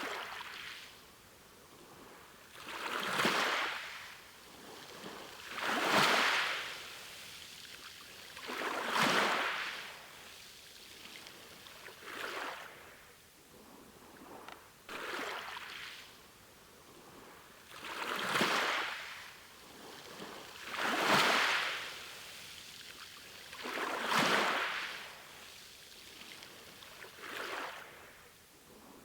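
Sea waves breaking and washing up a shore. The surf swells and falls away about every three seconds, a rhythmic wash of water.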